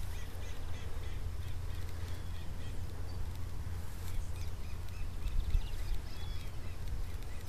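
Birds calling outdoors: runs of short, repeated calls, over a low steady rumble.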